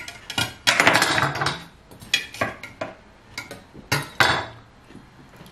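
Metal knife clinking and scraping against a stainless-steel serving tray while watermelon is cut on it. A dense clatter about a second in is followed by a string of separate sharp clinks.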